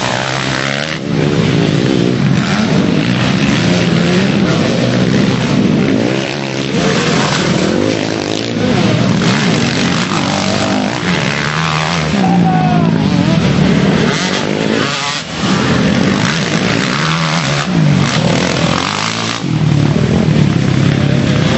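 Several motocross bikes' engines running hard, their note rising and falling again and again as the riders rev, shift and throttle through the mud.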